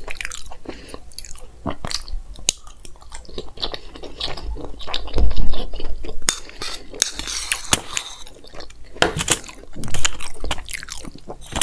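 Close-miked chewing of carrot halwa, with a stainless-steel spoon clinking and scraping against a steel bowl in short, sharp clicks; the loudest stretch comes about five seconds in.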